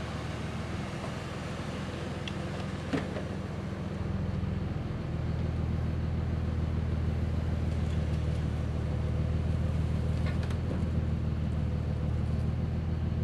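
Truck engine running steadily as it pulls the delivery trailer out from under the shed, getting louder about four to five seconds in. A few light clicks and knocks.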